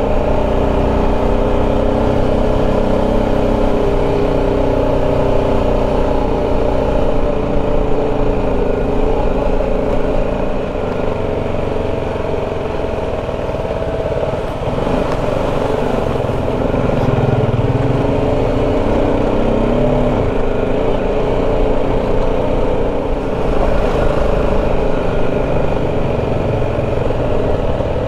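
BMW G 310 GS motorcycle's single-cylinder engine running steadily while riding, its note rising and falling a little.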